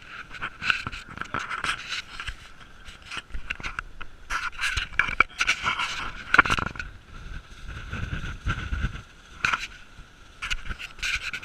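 Footsteps scraping and crunching irregularly on gritty ground, with a low rumble of wind on the microphone around the middle.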